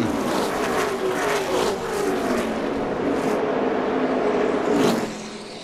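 V8 engines of NASCAR pickup race trucks racing past in a pack, their pitch sliding up and down as the trucks go by, getting quieter about five seconds in.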